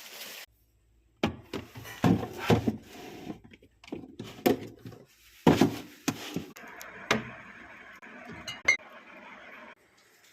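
Glass jars and food containers clinking and knocking as they are handled and set down on fridge shelves, with a steady hiss for about three seconds in the second half.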